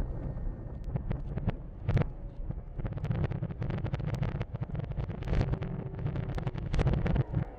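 Fireworks finale barrage: many shell bursts in quick succession over a continuous low rumble, growing denser about three seconds in.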